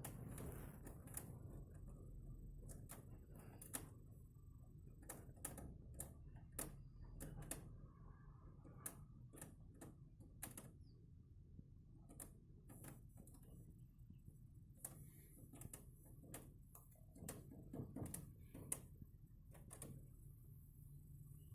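Faint, irregular sharp clicks and taps, one to three a second, over a low steady hum.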